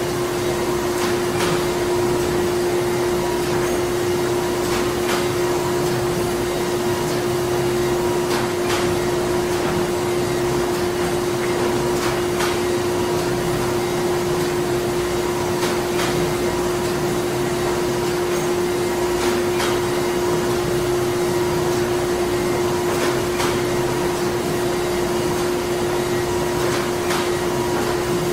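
Printing-factory machinery running steadily: a constant hum with one held tone, and faint clicks every few seconds.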